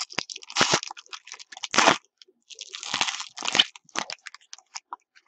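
Foil wrapper of a trading-card pack being torn open and crinkled, in a run of short, irregular crackling bursts.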